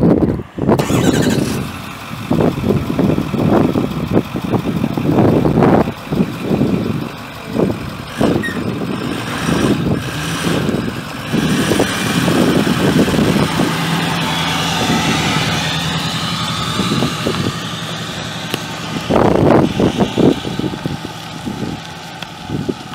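The 2009 Ford F350's 6.4L V8 turbo diesel engine running, its level rising and falling unevenly, with a steadier stretch in the middle.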